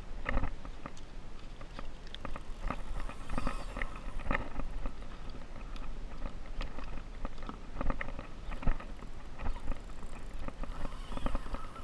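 Irregular knocks, taps and splashes from a plastic sit-on-top fishing kayak rocking on the sea, with rod and paddle handled against the hull, over a steady low rumble.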